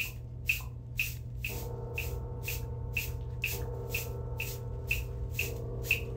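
Clock ticking, an even two ticks a second, over a steady low hum; faint held tones come in about a second and a half in.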